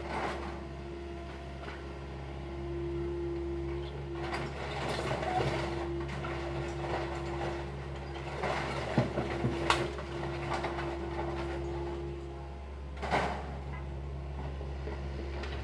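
Hydraulic excavator working on wooden-house demolition: its engine runs with a steady low hum and a whining tone, while wood and debris knock and crack. A few sharp knocks come about nine to ten seconds in, the whine drops out a little after twelve seconds, and a heavier crash follows about thirteen seconds in.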